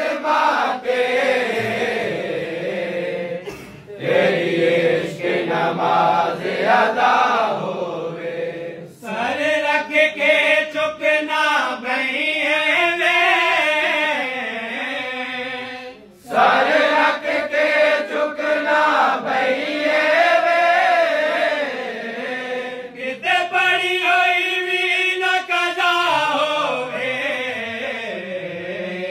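Group of men chanting a devotional Punjabi refrain together, in long drawn-out sung phrases with short breaks between them.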